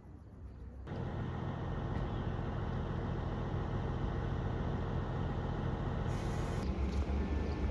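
Steady engine and road noise inside a moving tour bus, starting abruptly about a second in, with the low rumble growing heavier near the end.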